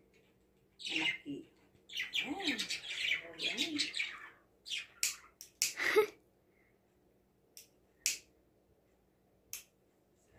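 A handheld lighter clicks several times to light a birthday candle: a quick run of sharp clicks about halfway through, the loudest near the middle, then two more single clicks later. Before that there is a short stretch of quick, high chirping ticks.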